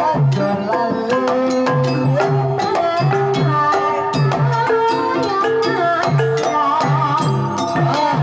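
Javanese Banyumasan gamelan playing a tayub gending: kendang hand-drum strokes over metallophones and gongs, with a melodic line gliding above.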